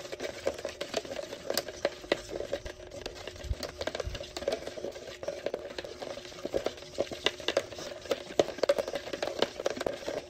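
Polyester laminating resin and MEKP hardener being stirred together in a container: a continuous run of quick, irregular scraping and tapping against the container's sides.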